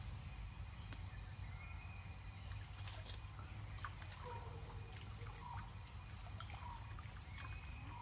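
Faint riverside ambience: a steady low rumble with a thin, high insect drone running through it, and a few short bird chirps from about four seconds in.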